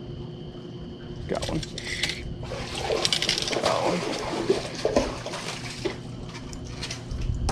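Water splashing and sloshing in uneven bursts, loudest from about two and a half to six seconds in.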